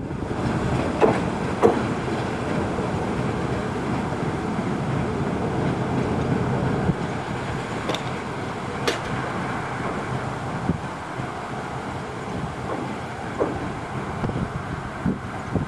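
TU2 narrow-gauge diesel locomotive's V12 diesel engine running steadily as it moves slowly along the track with a flat wagon, with wind buffeting the microphone. A few short sharp clicks stand out, one about 9 seconds in.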